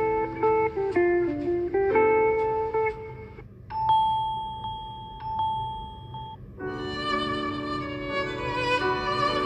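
Samsung Galaxy A34 phone ringtones playing one after another: a plucked-string melody stops about three and a half seconds in, then a chime held on one note and struck twice, then a fuller melody with string sounds starts near the end.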